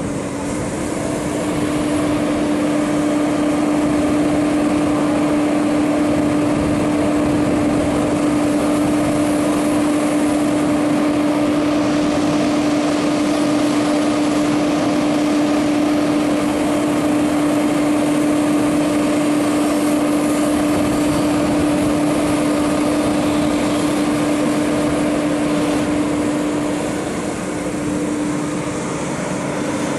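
JCB JS205 tracked excavator running close by, its diesel engine and hydraulics giving a loud, steady drone with a strong hum; the drone eases briefly near the end.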